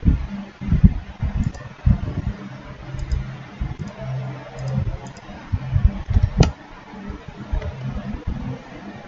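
Computer mouse clicks: small double ticks every second or so, with one sharper click about six and a half seconds in, over low thumps and bumps.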